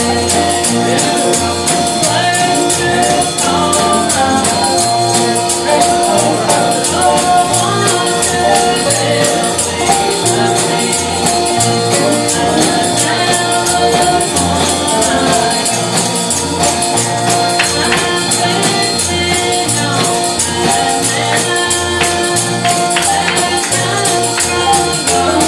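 Live gospel music: singing over a tambourine shaken on a fast, steady beat, with a pulsing bass line underneath.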